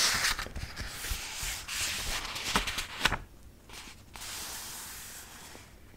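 Paper pages of a paperback book rustling as they are handled and turned, with a sharp tick about two and a half seconds in. After a brief pause comes a fainter, steady rustle.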